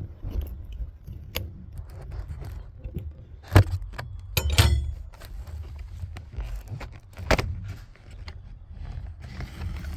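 A cardboard phone box being forced open by hand: rustling and scraping with several sharp cracks and snaps as the sealed box gives. A low rumble of handling noise runs under it.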